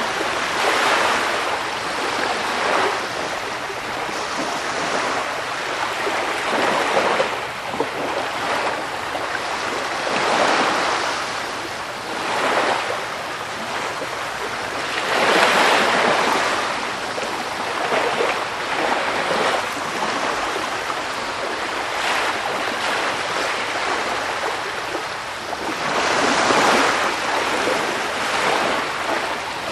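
Sea waves breaking and washing on the shore, a steady rush that swells with each wave every few seconds.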